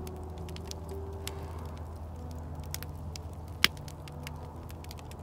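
Wood campfire burning in a steel fire ring, crackling with scattered sharp pops, one louder pop about three and a half seconds in.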